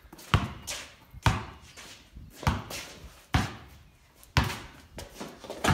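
A basketball being dribbled slowly on the shed floor, about six bounces roughly a second apart, each ringing briefly inside the corrugated-iron shed.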